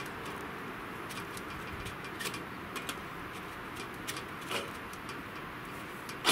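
Light metallic clicks and taps as stainless-steel wood-stove chimney pipe sections are fitted together by hand, with one sharp metal knock near the end, over a steady outdoor background hiss.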